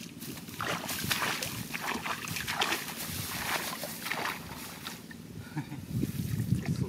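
Muddy water splashing and sloshing as a woven bamboo basket is scooped through a shallow rice-field channel, in several irregular splashes, with heavier sloshing near the end.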